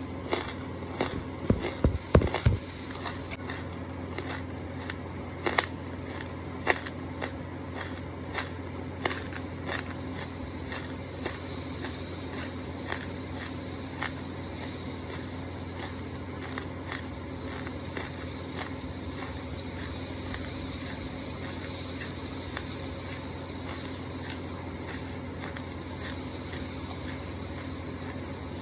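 Close-miked chewing of soft, crunchy charcoal: a cluster of loud crunches in the first couple of seconds, then quieter, scattered crackles and mouth clicks over a steady low hum.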